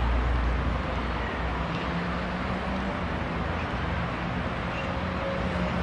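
Steady outdoor background noise: a low rumble and hiss, with a faint low hum coming in about a second and a half in.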